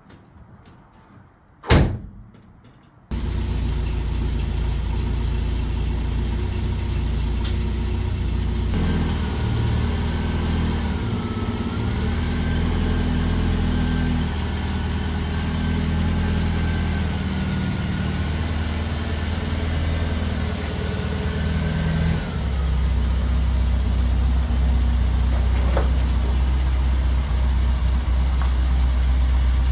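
A car door shuts with one sharp thud, and about a second later the 1974 MGB GT's 1.8-litre four-cylinder engine starts and settles into a steady idle. A thin wavering whine rides over the idle for a long stretch in the middle.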